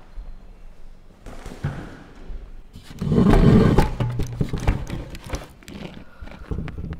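Handling noise on the microphone as someone adjusts the camera device close up: a loud rush of rustling and bumping about three seconds in, lasting about a second, with lighter knocks and clicks before and after.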